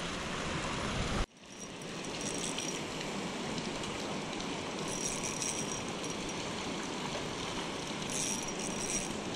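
Steady rushing of river water, cut off abruptly about a second in and then resuming, with a few short high-pitched rattling sounds over it.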